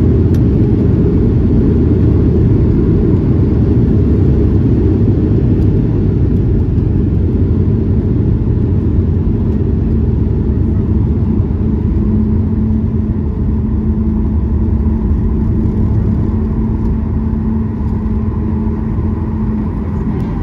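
Cabin noise inside a Boeing 737-800 just after landing: a loud, steady low rumble from the CFM56-7B engines and the rolling airframe that slowly eases off, with a steady hum coming in about halfway through.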